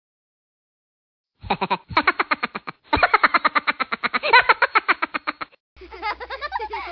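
A voice in a fast, stuttering run of pulsed calls like laughter, lasting about four seconds. After a short break, a different wavering call begins near the end.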